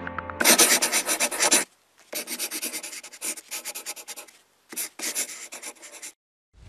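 Scratchy pen-on-paper writing sound effect, rapid short strokes in three runs with brief pauses between them, used as a title-text reveal.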